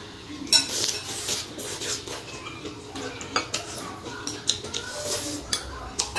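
Close-miked chewing of a mouthful of raw leafy greens. In the second half a metal spoon clinks several times against glass bowls as food is scooped.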